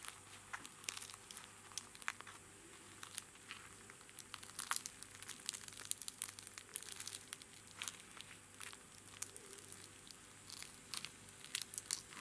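Flaky, layered baked crust of a meat-and-onion samsa crackling and crunching as it is torn open by hand: a run of small irregular crackles, thickest about halfway through and again near the end.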